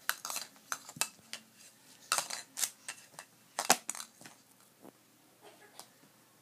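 Hard plastic rings of a Fisher-Price Rock-a-Stack toy clacking and knocking against each other and the post as they are handled. It is a quick scatter of sharp clicks that thins out to a few faint ones over the last couple of seconds.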